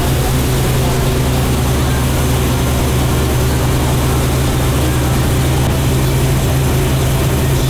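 Motorboat engine running steadily at a constant speed, with a steady rush of water and wind.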